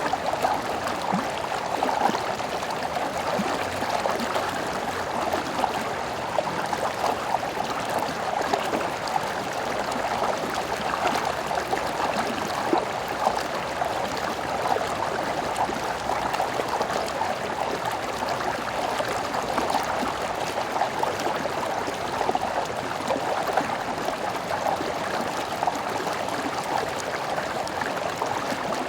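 Stream water running steadily over stones, a continuous gurgling rush with fine splashing.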